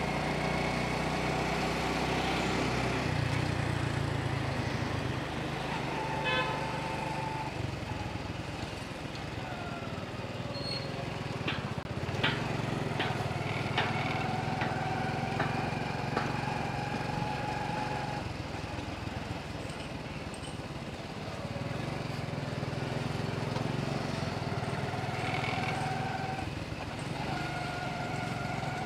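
Motorcycle engine running at low speed, its pitch shifting now and then as the rider eases off and speeds up. A few sharp clicks come about halfway through.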